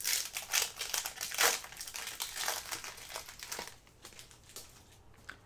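Crinkling of a plastic-foil trading-card pack wrapper as it is handled and opened, loudest in the first second and a half and fading out after about four seconds.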